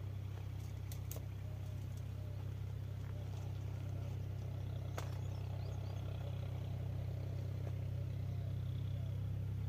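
A steady low hum, with a few faint clicks about a second in and again near the middle.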